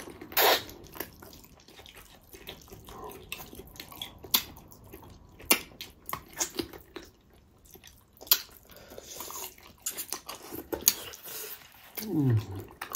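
Wet sucking, slurping and lip-smacking of people eating spicy pickled pork feet by hand, in short irregular smacks and clicks, one louder slurp about half a second in. Near the end comes a short vocal sound falling in pitch.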